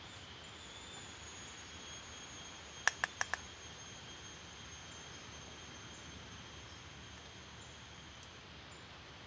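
Four quick metallic taps of a spoon against a small camping pot, about three seconds in, over a steady thin high-pitched whine.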